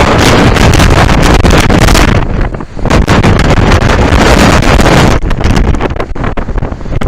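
Storm wind battering the microphone, loud and gusting, with short lulls about two and a half seconds in and again near the end.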